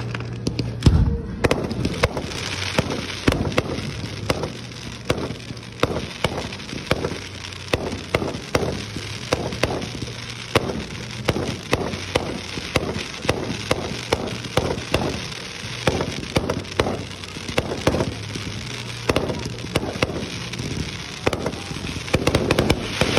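Aerial fireworks display: a rapid series of shell bursts and bangs, several a second, with crackling in between. The loudest bang comes about a second in.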